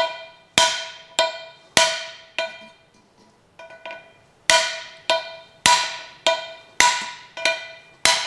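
A hammer strikes the face of a second hammer held as a drift against a seized valve in a Chevrolet 235 inline-six cylinder head. The metal-on-metal blows ring, coming about one and a half to two a second, with a pause of about two seconds near the middle. The valve stem is galled and stuck fast in its guide.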